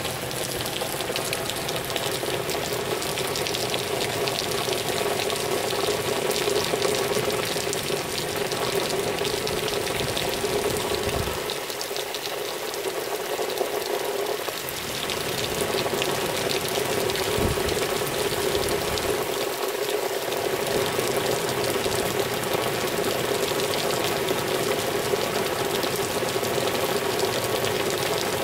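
Heavy downpour: a steady hiss of rain with a dense patter of drops.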